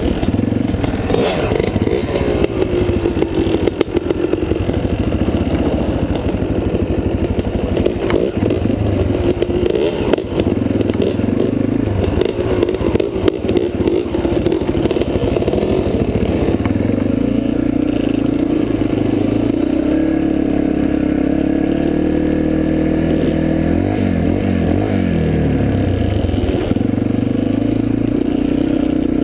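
Yamaha dirt bike engine heard from on the bike itself, running and revving as it rides over rough gravel, its pitch rising and falling with the throttle and gear changes, with rattling and scraping from the bike and ground.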